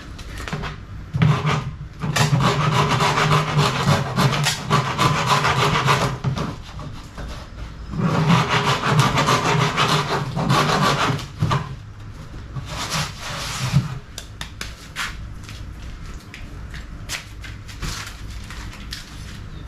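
A hand file rasping over a patched spot on a plastic Jet Sled hull, smoothing the repair flush. It goes in two long runs of rapid strokes with short bursts between, then lighter scattered knocks and handling for the last few seconds.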